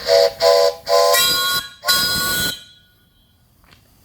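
Five-chime steam whistle on a fire-tube steam boiler blown loud in a series of blasts: two short toots, then two longer ones. The chord shifts higher in the last two blasts, and the whistle stops about two and a half seconds in.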